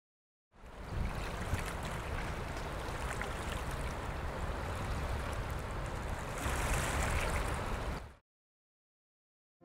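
River water rushing steadily over stones, with a deep rumble underneath. It comes in about half a second in and cuts off sharply more than a second before the end.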